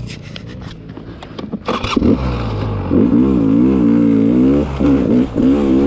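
A few clicks and scrapes, then about two seconds in an enduro dirt bike engine comes in sharply and runs with its revs rising and falling, easing off briefly twice.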